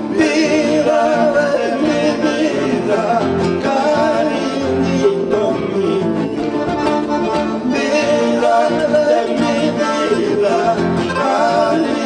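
A man singing a song, accompanied by acoustic guitars playing together.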